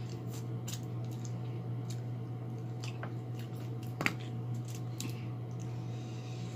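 Close-up eating sounds of a person chewing a spicy chicken wing: scattered wet mouth clicks and smacks, one sharper click about four seconds in. A steady low hum runs underneath.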